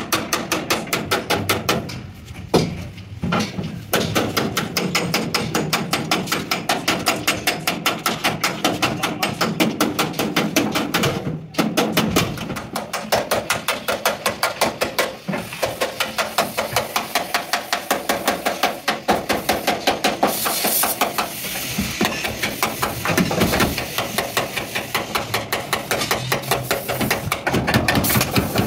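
Hand hammer beating the sheet steel of an accident-damaged Hino truck cab, in rapid, even strikes several a second, with a brief break about two seconds in.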